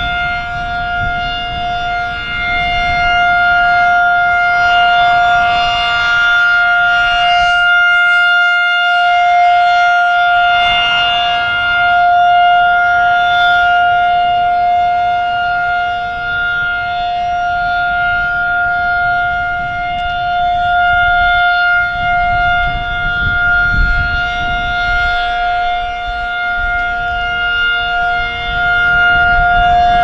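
Federal Signal 2001-SRN rotating outdoor warning siren sounding a steady full-alert tone, one unwavering pitch that swells and eases as the horn turns. Wind buffets the microphone underneath.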